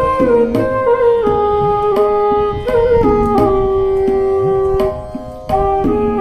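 Flute playing a melodic interlude in a ghazal, moving in steps with one long held note in the middle, over regular tabla strokes whose bass drum glides up in pitch.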